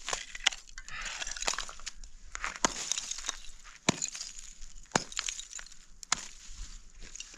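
A hammer striking hard river ice about once a second, each blow a sharp crack followed by the crunch and clink of ice shards breaking loose.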